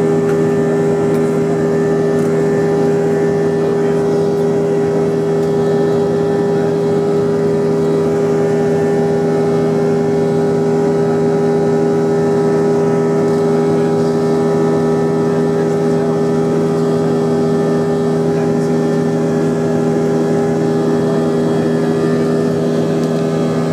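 Airbus A321 cabin during the climb after takeoff: the steady drone of its IAE V2500 turbofans, several tones held at a constant pitch over an even rush of air.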